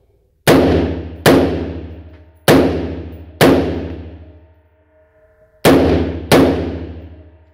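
Six shots from an AR-style rifle, each a sharp crack followed by a long echo that dies away over about a second, booming in an enclosed range. They come in three pairs, each pair a little under a second apart.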